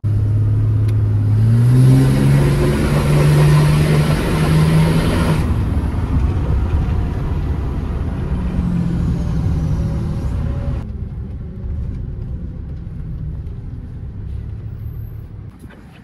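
Pickup truck engine accelerating, its pitch stepping up about a second and a half in and holding for a few seconds under a strong rush of noise. It then eases off to a lower steady rumble that gradually fades.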